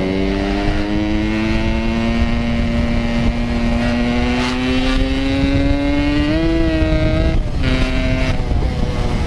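Yamaha RX King's two-stroke single-cylinder engine pulling hard while riding, its pitch climbing steadily for about six seconds. It then drops sharply at a gear change and fades as the throttle closes near the end.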